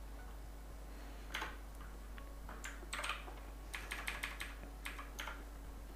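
Computer keyboard keystrokes: a scattered handful of quiet key clicks, with a quick run of several around the middle.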